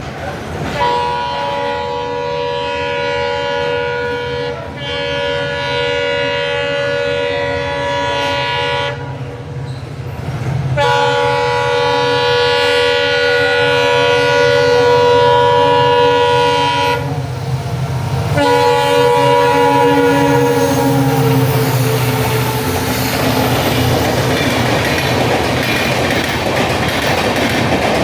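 Twin EMD WDP4D diesel locomotives sounding their horns, a chord of several tones at once, in three long blasts. The last blast drops in pitch as the locomotives pass. Then the rumble and clickety-clack of the express coaches rushing past at speed.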